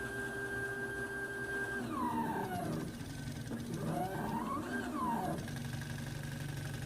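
Stepper motors salvaged from a copier whining as they drive the axes of a small homemade CNC plotter. The whine holds a steady pitch for about two seconds, then glides down, then rises and falls again as the motors slow and speed up, and settles into a low steady hum near the end.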